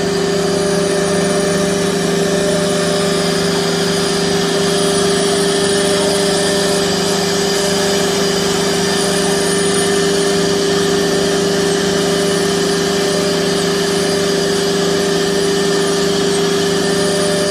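CNC router's 4.5 kW HQD air-cooled spindle running steadily as it routes a fibreboard panel, with a dust collector drawing through the hose at the spindle: a constant machine hum with a high, even whine over the cutting noise.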